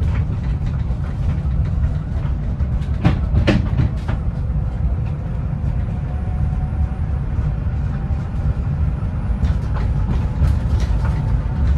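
Cabin noise of a driverless electric Heathrow Pod running on rubber tyres along its concrete guideway: a steady low rumble with a faint thin whine above it. A few sharp knocks come about three seconds in.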